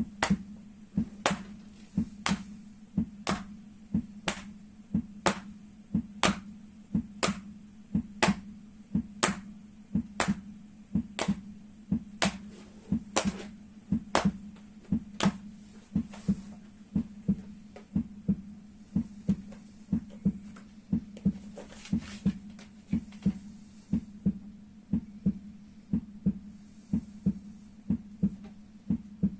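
Rhythmic thumping at a heartbeat pace, with sharp slaps about once a second, as hands strike the feet in time with the heart; the slaps fade out about halfway through while a low pulsing throb carries on.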